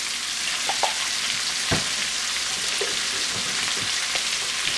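Bacon, chopped onion and minced garlic sizzling in bacon grease in a cast-iron Dutch oven, a steady hiss, with a single knock about a second and a half in.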